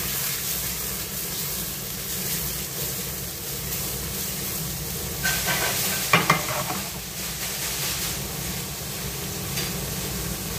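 Shrimp sizzling in oil in a frying pan over a gas flame, stirred and tossed, with a short burst of louder clattering and scraping from the pan about six seconds in.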